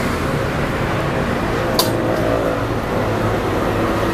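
Steady road traffic noise from passing cars, with one sharp click a little under two seconds in.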